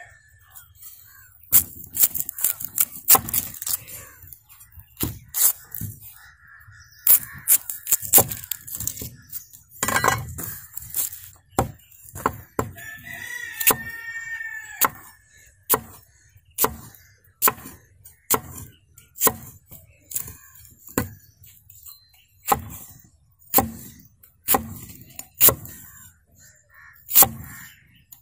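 A large knife cutting an onion on a wooden board: irregular slicing knocks at first, then steady chops of the blade hitting the wood, about one a second. A rooster crows once about halfway through.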